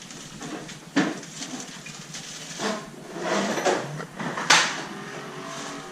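Objects being handled: three sharp knocks and clinks, about a second in, near the middle and the loudest about three-quarters through, with softer rustling between.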